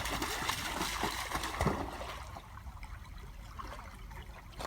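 River water trickling and splashing, busy with small splashes for about two seconds, then quieter.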